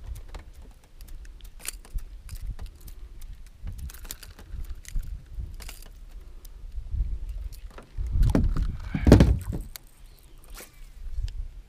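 Light clicks and clinks of fishing tackle and a reel being handled in a boat, over a low rumble, with a louder stretch of low bumping about eight to nine seconds in.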